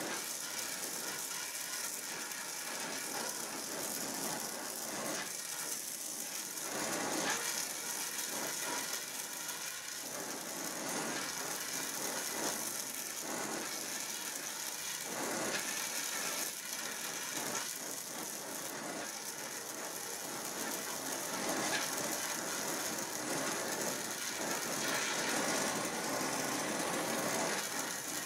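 Donmet 132A micro gas-welding torch flame hissing steadily, with irregular crackling from the weld pool as a pinhole leak in a steel water pipe is welded up.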